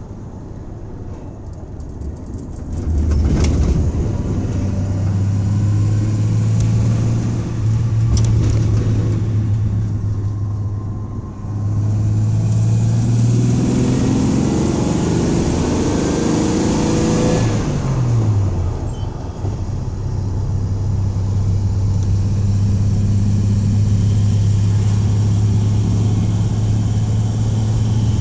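1984 Dodge van's engine being driven hard: a steady engine drone that gets louder a few seconds in, climbs in pitch as it revs up about halfway through, drops sharply, then settles back into a steady drone. The owner is listening for a suspected misfire at wide-open throttle.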